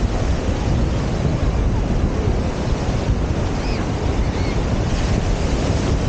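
Wind buffeting the microphone over the steady wash of surf breaking on the beach.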